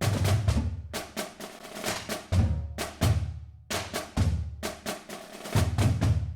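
Drum-heavy percussion music: repeated sharp drum strikes over low bass hits, with quick runs of rolls.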